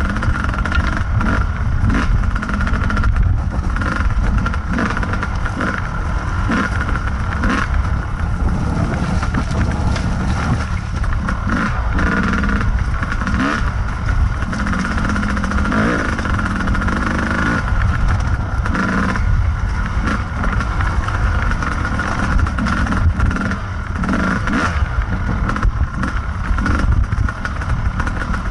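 Kawasaki KDX220's two-stroke single-cylinder engine running close to the microphone under changing throttle, its pitch rising and falling as the bike climbs a rocky trail, with frequent rattles and knocks from the bike over rocks.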